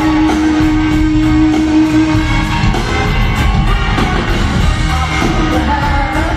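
Live rock band playing with singing, heard through a large arena's sound system: one note held for about the first two and a half seconds over a steady drum beat.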